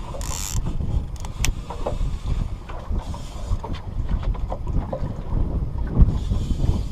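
Wind buffeting the microphone: an irregular, choppy low rumble, with a few faint clicks and a short hiss about half a second in and again near the end.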